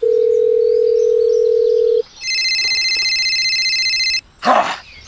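Telephone sound effects: a steady single-pitched tone for about two seconds, as when placing a call, then a mobile phone ringing with a high electronic trill for about two seconds.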